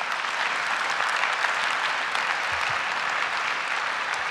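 Audience applauding steadily, a dense clapping of many hands.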